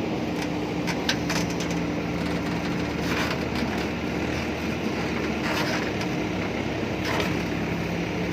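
JCB backhoe loader's diesel engine running steadily under load, with scattered short knocks and crunches of the bucket working soil.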